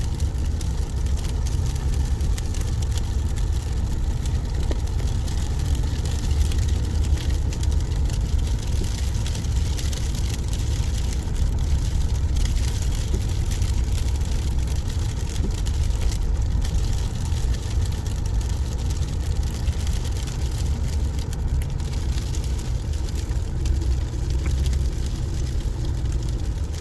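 Car engine and tyre noise, a steady low rumble, while the car climbs a snow-covered hill under load.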